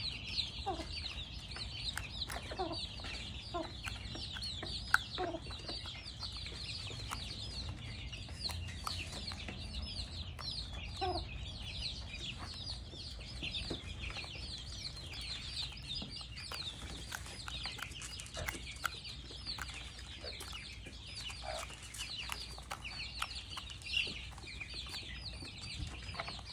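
A flock of more than fifty chicks peeping continuously in a dense, high-pitched chorus. A lower, louder call from a bigger bird breaks in now and then, about every few seconds at first and then more sparsely.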